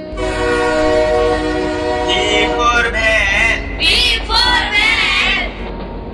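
Cartoon steam-train sound effect: a long, steady train horn chord over a low rumble for about three seconds. A wavering, warbling pitched sound follows until near the end.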